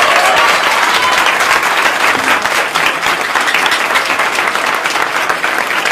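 Crowd applauding: dense clapping from many people that begins to fade near the end.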